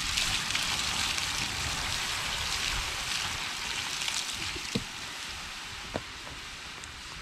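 Water poured onto a hot campfire, steam hissing from the coals and rocks and slowly dying down, with a couple of sharp pops about five and six seconds in.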